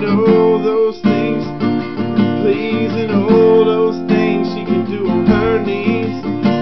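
Acoustic guitar strummed steadily in chords, with a brief break in the strumming about a second in.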